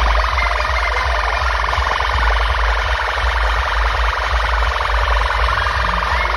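Massive outdoor DJ truck sound systems blasting electronic dance music at high volume. There is constant deep bass under a wailing, siren-like synth effect.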